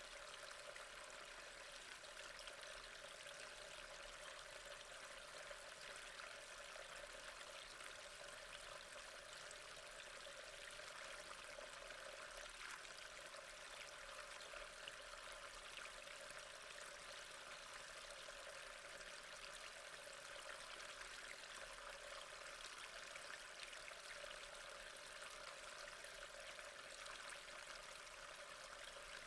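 Faint, steady trickle of flowing water in an aquascape tank, an even splashing babble with no breaks.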